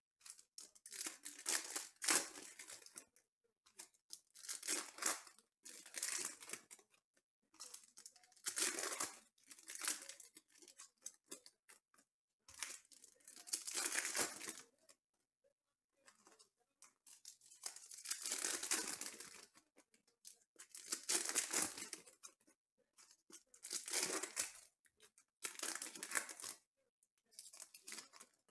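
Foil wrappers of Panini Prizm football card packs being torn open and crinkled by hand, in about nine separate bursts of a second or two with quiet gaps between.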